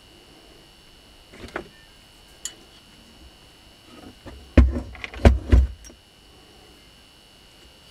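Washing-machine motor being handled and set down on a workbench: a couple of light knocks and clicks, then a cluster of heavy thumps about halfway through as the motor is turned over onto its side.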